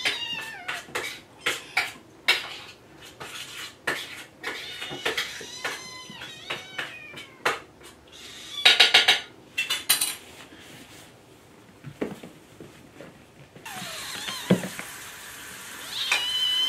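Several kittens meowing over and over, hungry and demanding to be fed. Sharp clicks and clinks of dishes and cutlery are mixed in.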